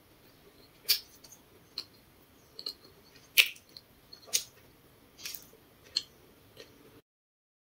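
Close-miked mouth sounds of someone chewing grilled potato: a scattered series of sharp, wet clicks and smacks, about eight in seven seconds. The sound cuts off abruptly near the end.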